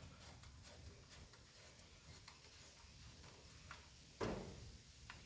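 Near silence with faint small clicks of a hand tool on a motorcycle bolt, and one sharper metallic click about four seconds in.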